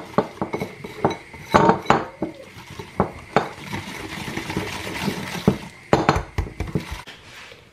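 Wire balloon whisk beating egg yolks, sugar and corn flour in a ceramic bowl, its wires clinking and tapping against the bowl's sides in quick, irregular strokes.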